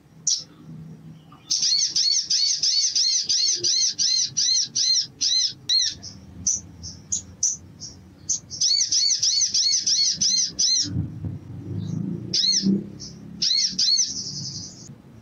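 Male olive-backed sunbird singing: rapid runs of sharp, high, arched notes at about four a second, in two long bursts and a shorter one near the end. A low rumble sits under the song in the middle.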